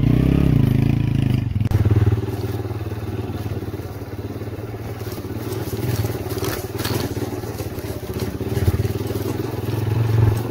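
Motorcycle engine running as the bike is ridden off, its note swelling and easing off several times.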